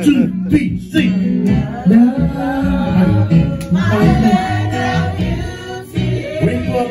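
A group singing a Hawaiian song in chorus, led by a man's voice through a microphone, with guitar accompaniment.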